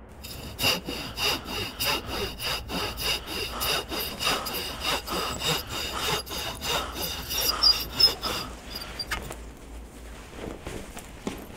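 Rhythmic back-and-forth rasping strokes, about two a second, like a hand saw working through wood. After about eight seconds they give way to softer, scattered rustling.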